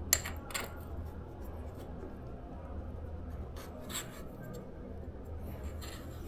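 Light scraping and a few sharp clicks of a headset cap being fitted back over the bearings of an e-bike's steering tube, over a steady low hum.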